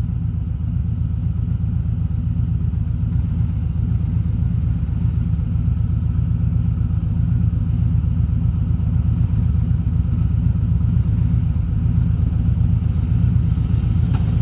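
Harley-Davidson Road King Special's V-twin engine running steadily at cruising speed, a deep, even rumble.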